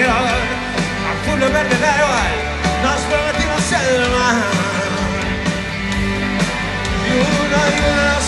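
Live rock band playing loud through a big outdoor PA: electric guitar, bass and drums, with a man singing lead, heard from the audience.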